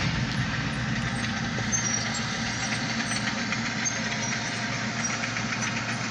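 Diesel freight locomotive engine running steadily as a short grain hopper train rolls past, a low even hum with no break.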